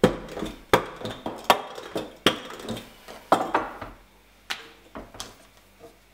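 Rolling pin rolling thin noodle dough back and forth on a floured table, knocking on the tabletop roughly every three-quarters of a second, with a soft rustle between knocks; the knocks thin out after about four seconds.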